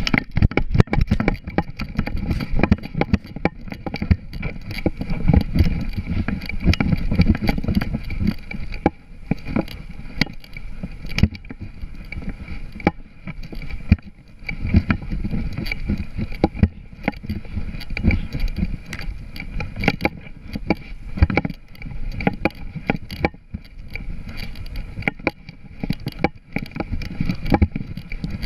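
A GoPro camera strapped to a running border collie is jolted with every stride, giving a dense run of irregular knocks and clicks over a heavy low rumble of wind and body movement. The sound starts abruptly as the dog sets off.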